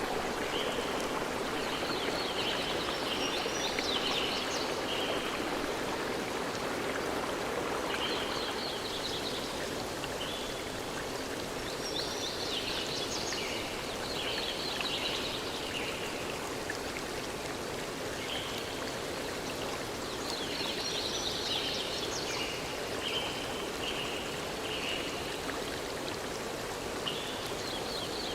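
A stream flowing steadily, with a songbird singing short chirping phrases of high notes every several seconds.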